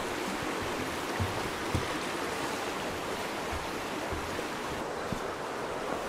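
Steady rushing of a small river flowing through a wooded glen, with a few soft low thumps.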